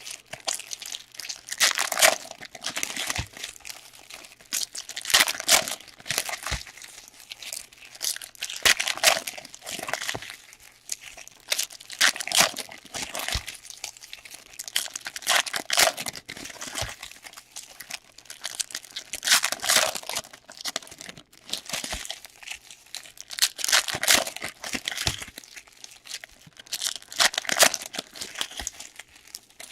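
Plastic wrappers of hockey card packs being crinkled and torn open by hand, in irregular rustling bursts one or two a second.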